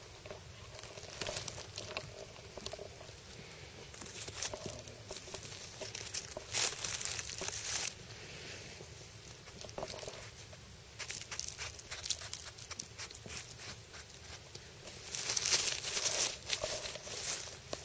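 Dry leaf litter and soil rustling and crinkling as they are scraped away from around the base of a cep on the forest floor, in irregular bursts, loudest near the end.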